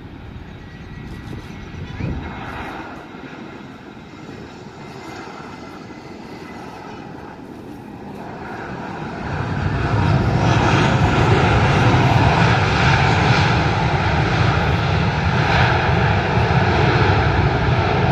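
Airbus A320-214 jet airliner's engines during landing and rollout: a moderate rumble that grows into a much louder, steady roar about nine seconds in, holding as the airliner rolls along the runway.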